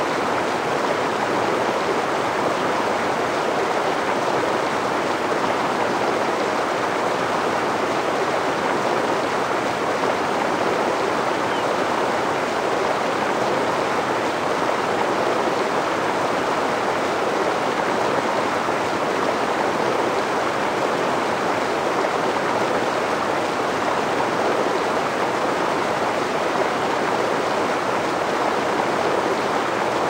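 River water rushing over rocks: a steady, unbroken rush of flowing water.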